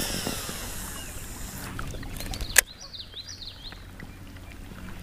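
Baitcasting reel spool whirring as line pays out on a cast, its pitch falling as it slows, cut off by a sharp click about two and a half seconds in. A bird then chirps a quick run of notes.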